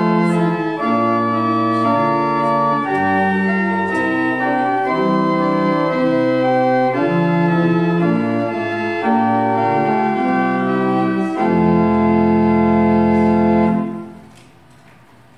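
Church organ playing a hymn in sustained chords, ending on a long held final chord that cuts off about fourteen seconds in.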